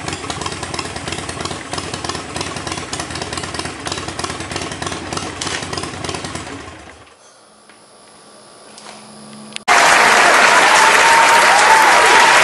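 Harley-Davidson Sportster Forty-Eight's 1200 cc air-cooled V-twin running steadily through its exhaust, fading out about seven seconds in. After a short lull, loud crowd applause and cheering starts suddenly near the end.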